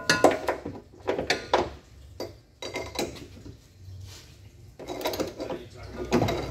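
Irregular metal clinks and knocks of a socket wrench on a long handle being handled and fitted onto the rear battery-mounting bolts under a Nissan LEAF.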